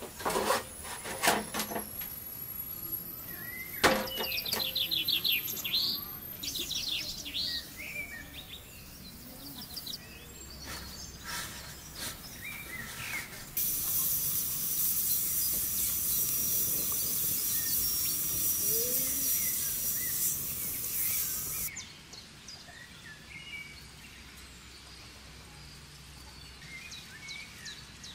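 Steam hissing steadily from a big pressure cooker for about eight seconds, starting and stopping abruptly, with a faint whistling tone running through it. Birds chirp around it, and a few knocks sound near the start.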